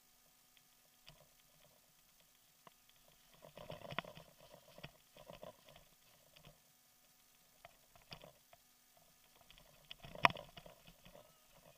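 Bicycle rattling over a rough gravel dirt road: scattered clicks and knocks, with louder stretches of rattling about four seconds in and again about ten seconds in.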